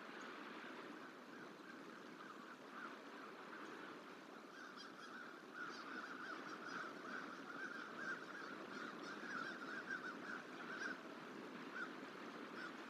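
American crow cawing over and over in quick runs of harsh calls, busiest in the second half. The crow is mobbing a juvenile bald eagle, a territorial protest.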